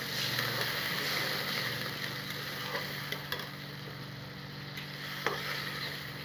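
Tomato-and-onion masala sizzling in hot oil in a metal kadhai just after water is added, while a metal spatula stirs and scrapes it with a few clicks against the pan. The sizzle is strongest in the first two seconds, then settles to a softer bubbling.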